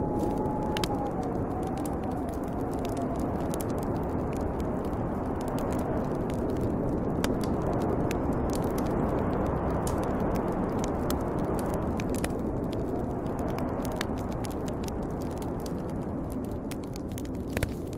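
Snowstorm wind blowing steadily with a faint wavering whistle, over a wood fire crackling with scattered sharp pops.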